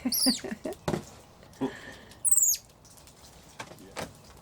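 Cinnamon capuchin monkeys giving short, high-pitched squeaks that fall in pitch, one at the start and another about two seconds in, with a few faint knocks between them.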